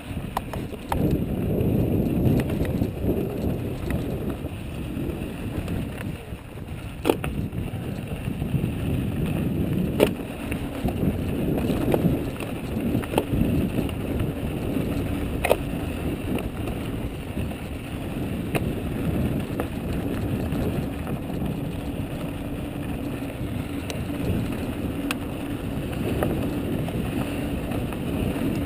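Mojo mountain bike rolling fast down a loose, dry dirt trail: steady rumble of tyres on gravel mixed with wind on the microphone, broken by a few sharp knocks and rattles as the bike hits bumps.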